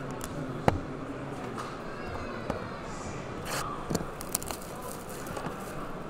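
Sealed trading-card hobby boxes being handled and shifted on a table: a sharp tap less than a second in, then a few softer knocks and rustles, over the steady chatter and noise of a busy convention hall.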